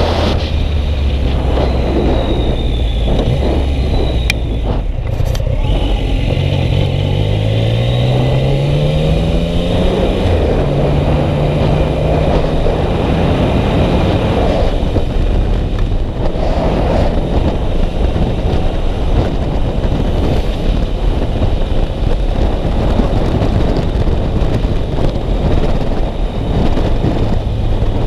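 Yamaha MT-09's three-cylinder engine heard on the move through heavy wind noise. Its pitch rises as it accelerates between about six and ten seconds in, then holds steady.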